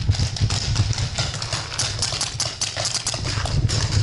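Quick, uneven running footsteps on a packed dirt field, close to the microphone, with clattering from carried paintball gear.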